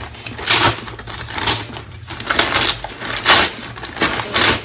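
A shipping package being opened by hand: about five loud bursts of tearing and rustling packaging, roughly one a second.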